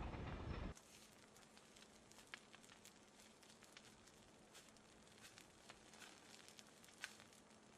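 A loud rushing noise cuts off under a second in, leaving faint, irregular crackling and popping of a burning wildfire.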